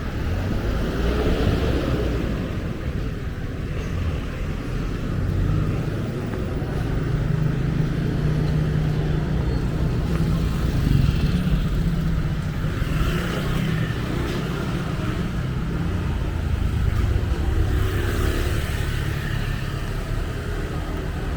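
Road traffic: vehicle engines running and passing close by. There is a low engine rumble, heaviest in the middle, and one engine revs up with a rising pitch about a second in.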